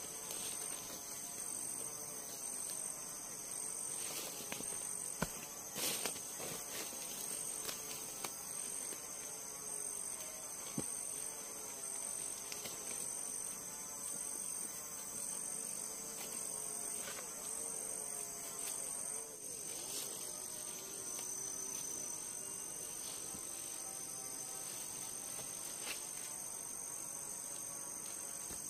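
Forest insects trilling at two steady high pitches, with a few sharp knocks in the first half.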